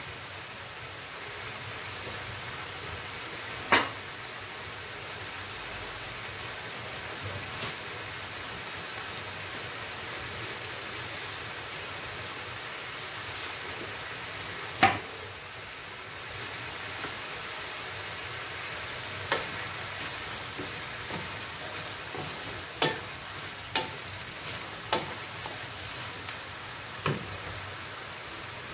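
Bamboo shoots in sauce simmering in a frying pan, a steady sizzling bubble, with scattered sharp clicks and knocks, about seven, the loudest about halfway through.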